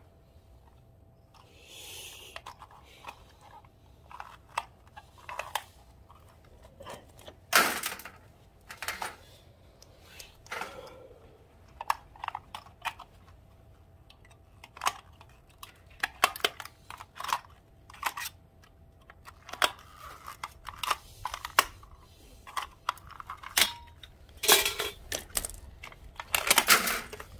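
Plastic clips and LED strip boards being pried and snapped off a sheet-metal light-fixture tray: irregular sharp clicks and snaps, with short scrapes, several in a row near the end.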